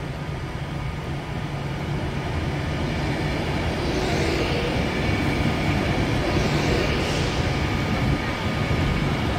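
Class 390 Pendolino electric train drawing slowly into the platform, its coaches running past close by with a steady rumble that grows louder. There are swells of high hiss about four and seven seconds in.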